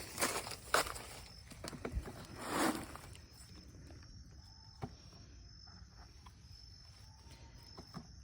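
Rustling and handling noises in the first three seconds. After that, a faint high insect trill keeps coming and going, with a few small clicks.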